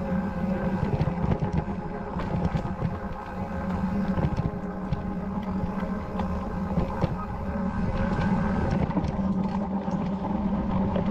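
Mountain bike riding on a rocky dirt trail: a steady rumble of tyres and wind on the microphone, with many small clicks and rattles from the bike.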